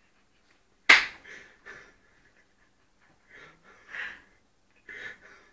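A person with a mouthful of dry coffee grounds sputtering: a sudden loud puff or cough about a second in, then short breathy gasps and wheezes.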